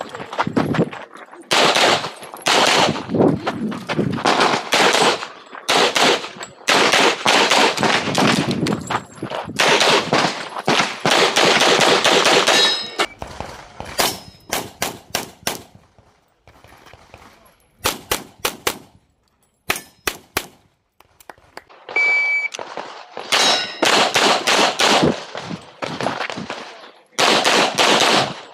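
Rapid strings of handgun shots in quick succession, in bursts broken by short pauses, as in a practical shooting stage, with some metallic clangs. A short electronic beep sounds about 22 seconds in.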